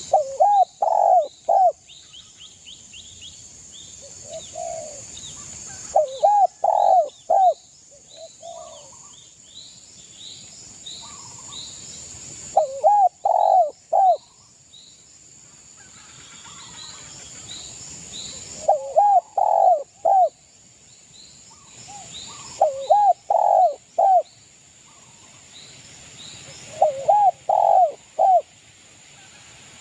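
Spotted dove (derkuku) cooing: six loud phrases of three to four coos each, repeated every four to six seconds. Small birds chirp faintly at a higher pitch between the phrases.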